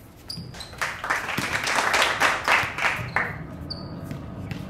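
Hand clapping, a quick run of claps lasting about two seconds, beginning about a second in.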